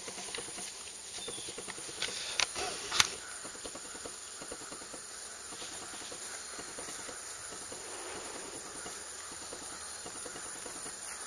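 Steady outdoor background hiss with a fine, irregular crackle. Three sharp clicks come between about two and three seconds in, the last the loudest.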